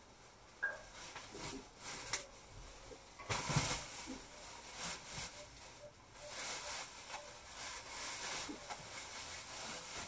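Rustling with scattered light knocks and snaps, the loudest a short burst a little over three seconds in, and denser rustling through the second half.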